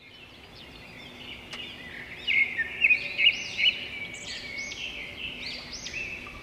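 Birds calling in the trees: repeated short chirping calls that rise and fall in pitch, busiest from about two to four seconds in, over a faint steady background.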